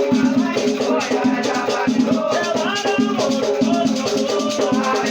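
Afro-Brazilian batuque ritual music: shakers rattling in a steady rhythm, with chanting voices and drumming.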